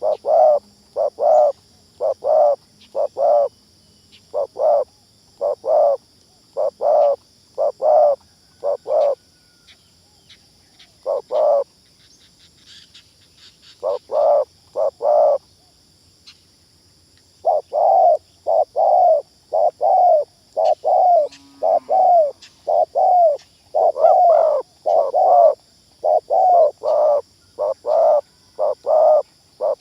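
Spotted dove (terkukur) lure call: a fast run of short coos, about two a second, broken by a few pauses of a second or two. Under it is a steady high insect drone.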